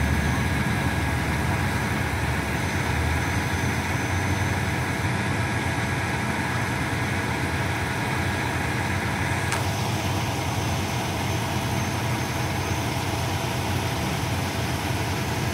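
Heavy tow truck's diesel engine idling steadily, with one short click a little past halfway.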